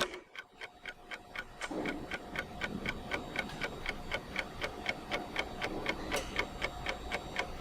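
Steady, rapid ticking at about four ticks a second.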